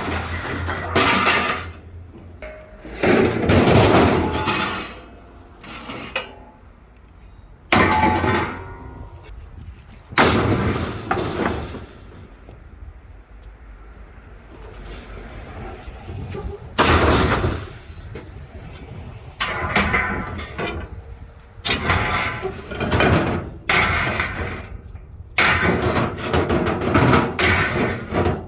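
Scrap metal being handled and loaded: a series of loud clanks and clatters a few seconds apart, with quieter stretches between.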